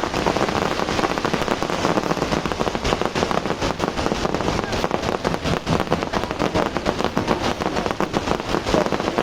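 Fireworks crackling: a dense, continuous run of rapid small pops, the individual cracks growing more distinct from about three seconds in.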